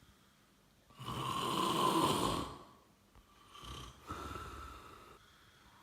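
A man snoring in his sleep: one long, loud snore about a second in, then two shorter, quieter breaths. The snoring is heavy enough that the uploader fears sleep apnea.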